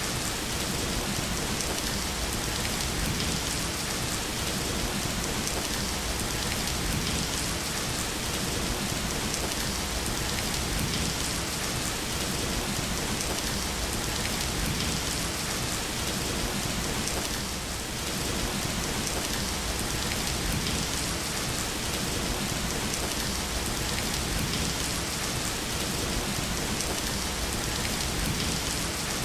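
Steady rain falling on a surface, a constant even hiss with no breaks or distinct claps.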